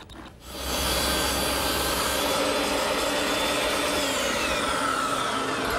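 Portable table saw running steadily from about half a second in as a melamine panel-cutting sled is pushed through the blade, trimming the sled's panel. A whine in the sound falls in pitch in the second half.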